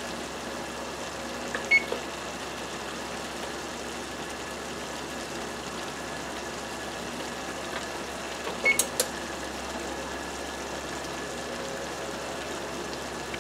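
Electric oven's control panel beeping as its keys are pressed to set a preheat temperature: a short high beep about two seconds in, and another beep with a couple of clicks near nine seconds, over a steady background hiss.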